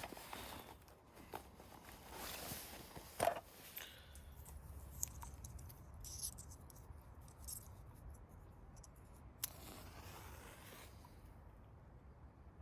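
Faint rustling and scraping, with a sharp click about three seconds in and a longer scrape near the end.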